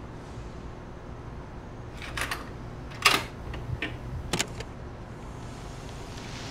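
Switches and buttons on a radio-cassette boombox clicking: about five sharp clicks between two and five seconds in, the loudest about three seconds in, over a steady low hum and hiss.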